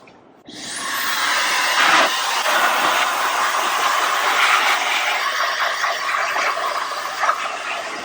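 High-velocity pet blow dryer switched on about half a second in, its motor spinning up to a steady, loud rush of air that is blowing the water out of a wet dog's coat.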